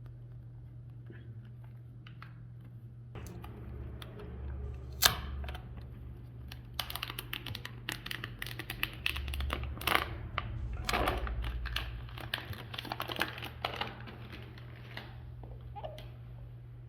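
Hands unboxing a boxed iPhone: a busy run of small clicks, taps and crinkling rustles of packaging, with one sharp tap about five seconds in, over a steady low hum.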